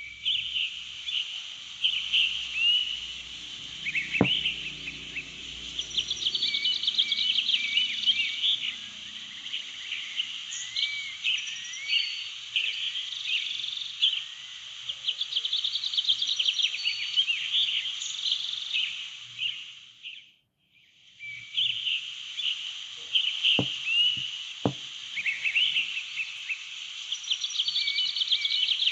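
Nature ambience of many small creatures chirping and trilling in a dense, continuous chorus of short, high calls. It fades out and comes back in about twenty seconds in. Two faint clicks follow a few seconds later.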